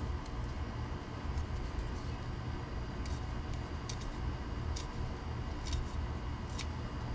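A hobby knife blade scraping a plastic RC kit part to clean up rough sprue edges: a handful of short, faint scrapes spread over the seconds, above a steady low hum.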